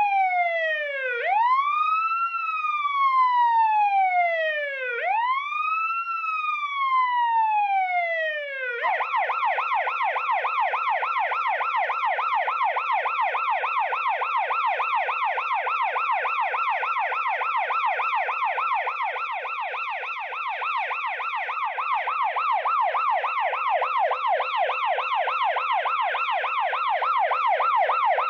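Police car siren sounding a wail, its pitch rising quickly and falling slowly over about four seconds per cycle, then switching about nine seconds in to a rapid yelp that sweeps up and down several times a second.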